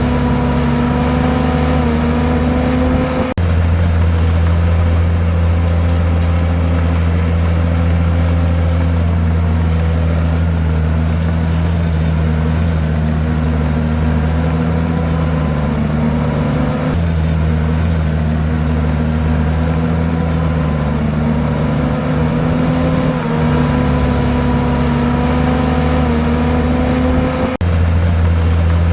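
Komatsu bulldozer's diesel engine running steadily under load, its pitch wavering a little as it works. The sound changes abruptly three times, about 3 seconds in, near the middle and near the end.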